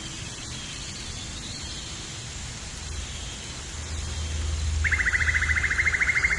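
Outdoor nature ambience: a steady hiss of background noise, with a low rumble swelling in the second half. About five seconds in, a loud, fast buzzing trill starts.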